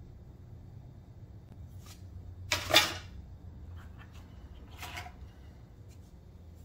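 Hard plastic model-kit sprues being handled and swapped: a brief clatter about two and a half seconds in, a softer one near five seconds, and a few light clicks.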